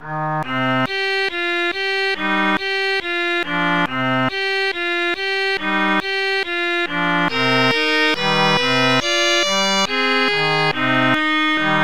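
Background music: a steady run of short pitched notes, about three a second, each struck and then fading.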